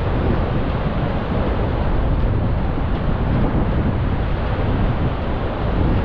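Wind buffeting the microphone in a steady low rumble, over the wash of ocean surf breaking on the beach.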